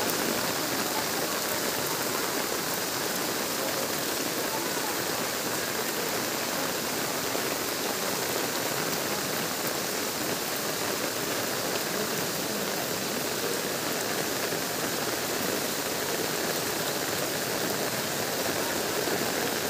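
Heavy rain falling steadily onto standing floodwater, a continuous even hiss that does not let up.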